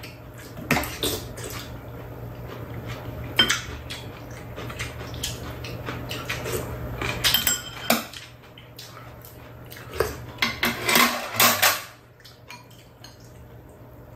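Metal spoons and chopsticks clinking and scraping against bowls and a metal tray during a meal, in irregular sharp clinks that bunch together about two-thirds of the way through. A low steady hum runs underneath and stops near the end.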